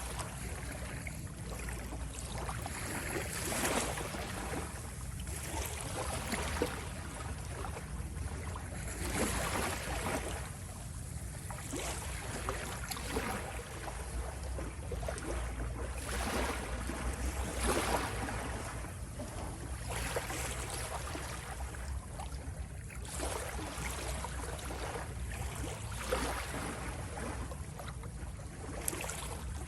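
Ocean waves washing and splashing in irregular surges every second or two, over a steady low rumble.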